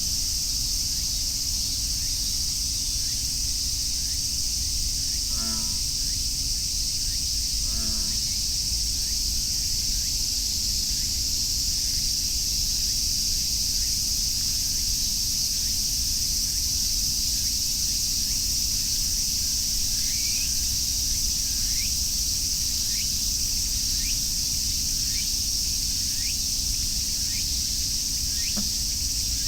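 A steady chorus of cicadas droning, with two short, low, pulsed croaks of an American bullfrog, the call likened to an old man's snoring, about five and eight seconds in. A run of short falling chirps comes in during the last third.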